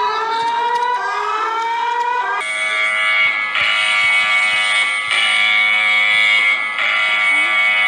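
Electronic Emergency Alert System–style alarm tones. Over the first couple of seconds a tone slides upward twice. Then a steady, buzzy stack of tones restarts about every second and a half.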